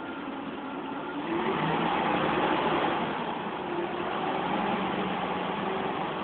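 Diesel engine of a Neoplan Jumbocruiser articulated double-decker coach running, growing louder about a second and a half in, then easing slightly.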